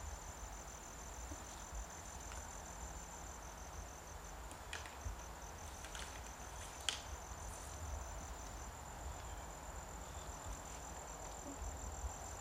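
Insects trilling steadily in two high, finely pulsing tones, over a low rumble, with a few sharp clicks about five and seven seconds in.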